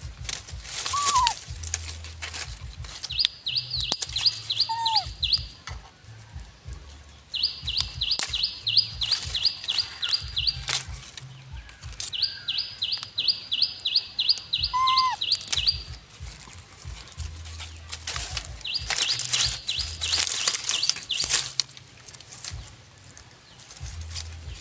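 A bird sings four runs of rapid, evenly repeated high notes, about four a second, each run two to three seconds long, with a few short whistled calls in between. Under it, dry leaves rustle and crackle as a macaque forages among them, loudest near the start and about four-fifths of the way through.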